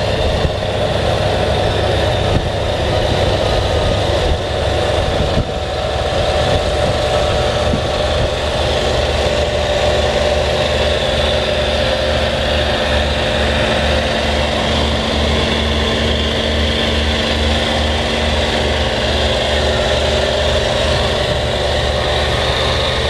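1990 Ford F-350's 460 cubic-inch gasoline V8 idling steadily with an even low pulse, heard with the hood open.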